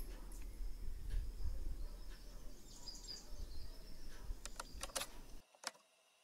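Outdoor ambience: a low wind rumble on the microphone, with faint bird chirps and a few light clicks. It cuts out to near silence about five and a half seconds in.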